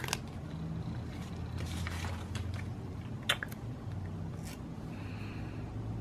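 Paper sticker sheets rustling and scraping as they are handled over planner pages, with one sharp click a little over three seconds in, over a low steady hum.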